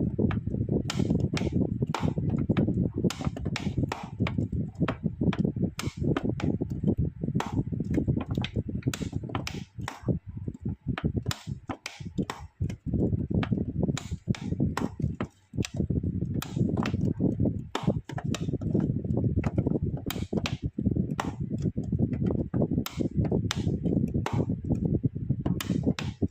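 A dense, irregular run of knocks and clicks over a steady low rumble, with a few brief lulls.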